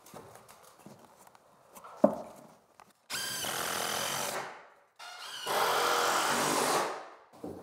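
A power drill runs in two bursts while a board is fastened to the ceiling: one burst of about one and a half seconds, then one of about two seconds with a steady whine. A single sharp knock comes about two seconds in, before the drill starts.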